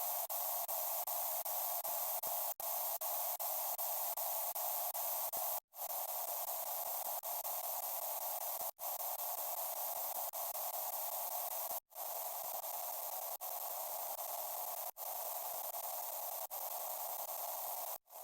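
Steady harsh static-like hiss with no bell tone in it. It is cut by brief dropouts, quick ones about three a second for the first five seconds or so, then one about every second and a half.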